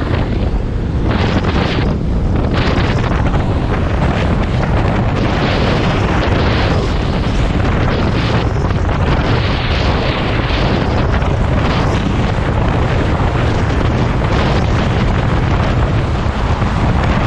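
Loud, steady wind buffeting the microphone, a continuous rumbling roar that drowns out everything else.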